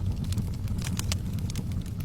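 Fireplace wood fire burning: a steady low rumble of flame with frequent sharp crackles and pops from the burning logs.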